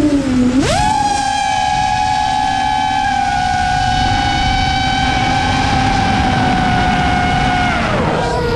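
7-inch long-range FPV quadcopter's motors and propellers whining. The pitch jumps sharply up under a hard throttle punch about half a second in and holds steady at high throttle. Near the end it drops as the throttle comes off.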